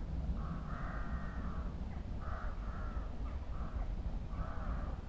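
Crows cawing, a series of six or so short harsh calls about a second apart.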